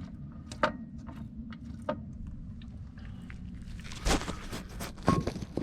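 Scattered clicks and knocks of tools and metal parts being handled during clutch work, the loudest knocks about four and five seconds in, over a steady low hum.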